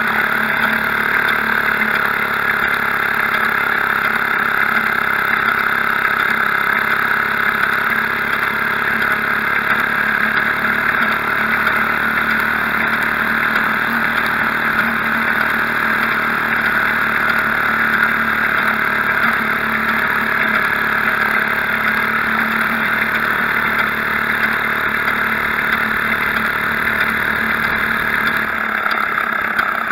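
Maytag Model 72 twin-cylinder two-stroke washing-machine engine running steadily as it drives a homemade motor bicycle along, heard close up from beside the engine. Its low rumble thins out near the end.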